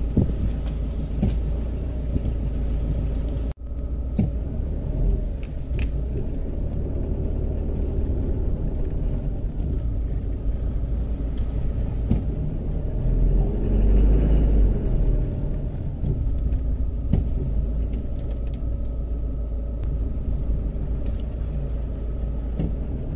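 Car cabin noise while driving slowly in traffic: a steady low engine and road rumble, breaking off for an instant about three and a half seconds in and swelling briefly near the middle.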